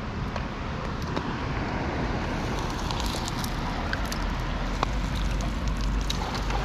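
Steady outdoor rushing noise with a deep rumble, and scattered small clicks and ticks from about halfway through.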